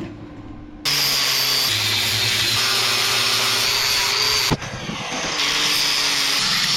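Electric angle grinder running against steel, in two runs with a short stop and a click between them, its motor pitch dropping slightly as it is pressed into the work.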